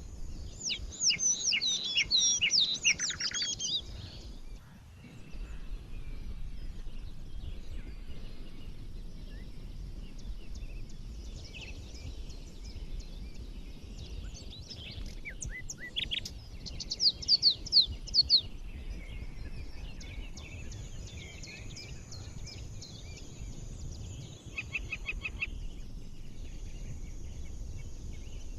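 Songbirds singing and chirping in a computer-generated daytime forest soundscape. The loudest parts are quick runs of high falling notes in the first few seconds and again a little past halfway, with scattered calls between, over a steady low rumble.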